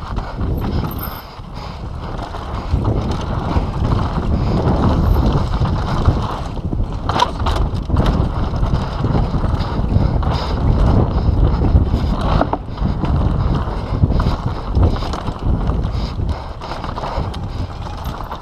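Mountain bike ridden fast down a dirt singletrack trail: wind buffeting the action-camera microphone and tyres rumbling over the ground, with frequent clicks and knocks from the bike rattling over bumps. The rumble grows louder about three seconds in and eases near the end.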